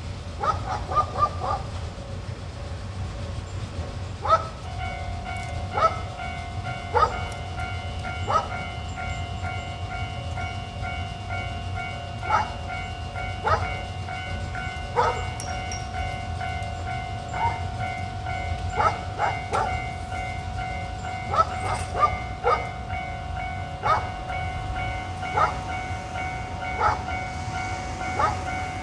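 JNR Class EF58 electric locomotive standing at a platform with its equipment running. A steady pitched whine sets in about four seconds in over a low rumble, and sharp metallic clanks repeat roughly every second and a half.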